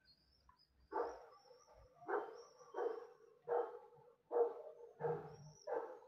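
A dog barking in a steady series, seven barks at about one every 0.7 seconds, starting about a second in.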